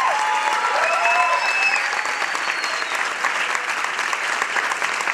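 Theatre audience applauding steadily at the curtain call, with a few voices calling out over the clapping in the first couple of seconds.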